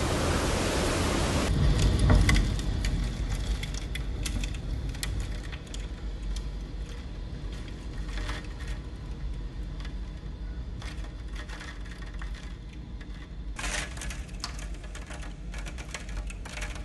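Hurricane-force wind roaring with driving rain. After a cut about a second and a half in, gusts buffet the phone's microphone as a heavy low rumble, with scattered sharp ticks and crackles over it. A brief loud rush of wind comes back near the end.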